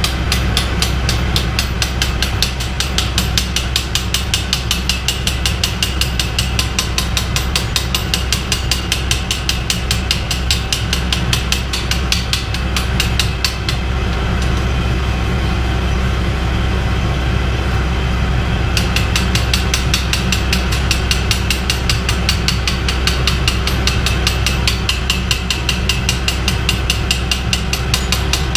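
A heavy shop machine's electric motor running steadily with a low hum and a rapid, regular ticking. The ticking drops away for a few seconds about halfway through, then comes back.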